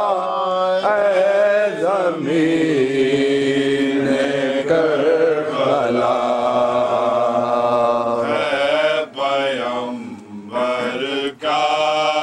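A man's voice chanting a noha, a mournful Urdu lament, in long held melodic lines. It breaks briefly a few times near the end.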